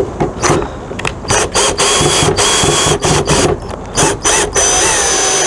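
A tool working fasteners loose on an RV awning's hardware: a rapid ratcheting clatter in several runs with short pauses between them.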